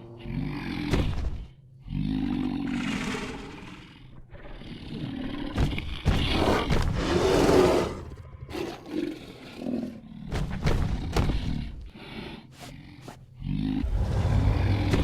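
Sound-effect calls of a Plateosaurus, a made-up dinosaur voice: several long, rough roars with shorter grunts between them. The loudest roar comes about seven seconds in, and another long one begins near the end.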